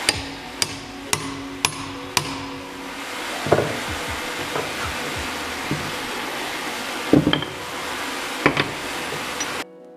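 Hammer blows on a rivet snap set on a red-hot steel rivet, forming its round head: five ringing strikes about half a second apart, then a few duller knocks. A steady hiss runs underneath, and shortly before the end the sound cuts to background music.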